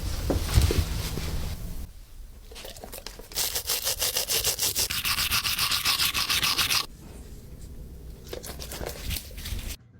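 Rapid, regular rubbing or scratching strokes lasting about three seconds, starting a few seconds in, with quieter uneven rubbing before and after.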